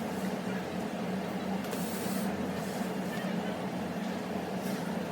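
Steady machine hum with an even hiss of noise and faint swells of higher hiss, with no distinct strikes or clicks.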